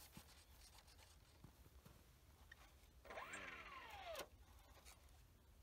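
RC plane's electric motor and propeller briefly spun up and back down about three seconds in, a whine that rises in pitch and then falls over about a second. Otherwise near silence, with a few light knocks of handling.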